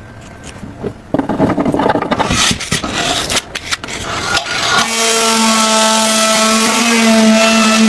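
Irregular scraping and rubbing, then about five seconds in a small motor starts running with a steady hum that steps up slightly in pitch near the end.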